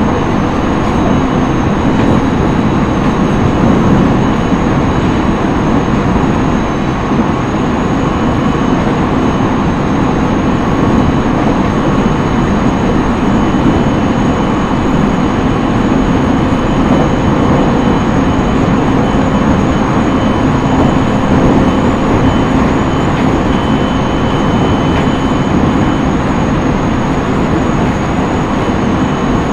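Running noise of a JR East E127 series electric multiple unit, heard inside its motor car close to the floor: a steady rumble of wheels on track with a few faint steady tones over it, and no change in speed.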